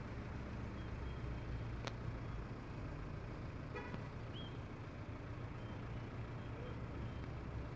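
Steady urban traffic noise with a low engine rumble, and a short beep about four seconds in.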